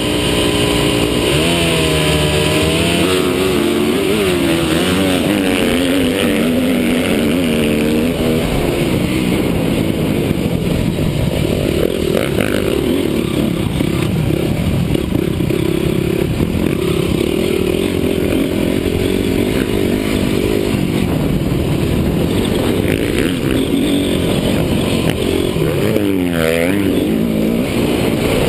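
Honda CRF250 motocross bike's single-cylinder four-stroke engine running hard under the rider, its pitch rising and falling as the throttle opens and closes and gears change. Near the end the revs dip sharply and climb again.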